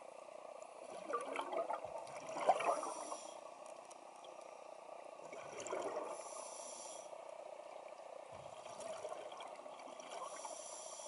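Scuba diver breathing underwater, heard through the camera housing: a hiss from the regulator and bursts of bubbling exhaust, repeating a few times.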